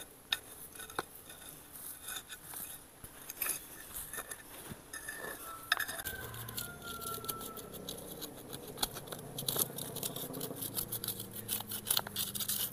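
Steel rebar rod prying and scraping in soil and gravel around a tree's roots, loosening a sea hibiscus from the ground bed: a fairly quiet string of scattered light scrapes, clicks and crunches.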